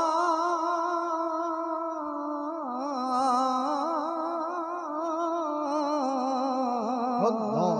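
A man's voice singing a long, wordless held passage of a Punjabi naat into a microphone, with a wavering vibrato, stepping down to lower notes a couple of times and sliding downward near the end.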